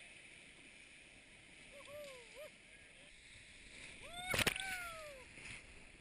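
Rushing water of class 3–4 whitewater rapids around a raft, with rafters letting out a few short high whoops. About four seconds in comes a sharp hit, the loudest moment, followed by a long falling whoop.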